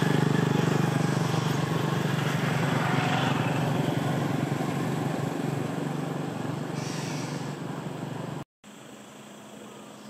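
Steady motor drone with a low hum under heavy noise, cutting off suddenly near the end.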